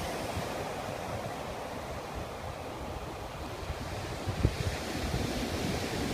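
Surf breaking steadily on a sandy beach, with wind buffeting the microphone in a short gust about four and a half seconds in.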